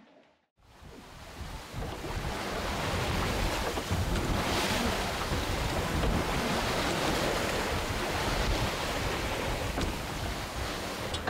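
Wind buffeting the microphone over the rush of waves along the hull of a sailboat under way. It comes in after a brief silence and builds up over the first two seconds, then holds steady.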